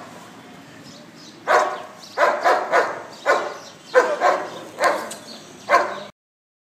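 Bull terrier barking, about nine barks in quick succession starting a second and a half in; the sound cuts off abruptly near the end.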